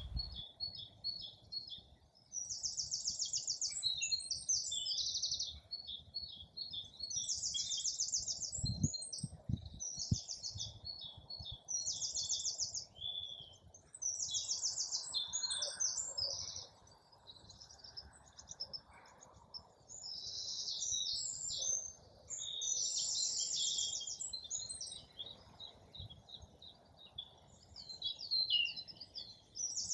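Several songbirds singing, with repeated bursts of fast, high trills a second or two long and scattered chirps between them.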